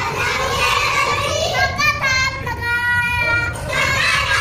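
A young girl's voice chanting a Hindi children's poem in a sing-song way, holding some notes.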